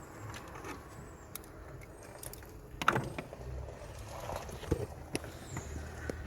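Scattered faint clicks and knocks of tools and car parts being handled, with one sharper knock about three seconds in, over a low steady rumble.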